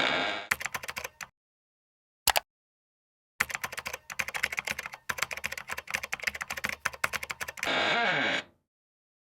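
Rapid clicking like keyboard typing, in bursts: a short run, a single click, then a long run of about four seconds. It ends with a brief sound that falls in pitch.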